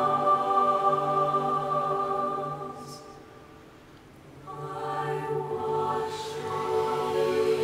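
Mixed youth choir singing slow, sustained chords. The chord dies away about three seconds in, leaving a brief hush, and the voices come back in softly about a second and a half later and build again.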